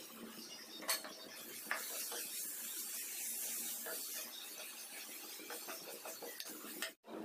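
Chopped onions sizzling in a frying pan while a metal spoon scrapes and stirs them against the pan, with a couple of sharp knocks in the first two seconds.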